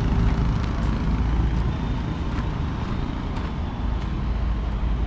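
Steady low rumble of vehicle and road noise from travelling along a road, with no single event standing out.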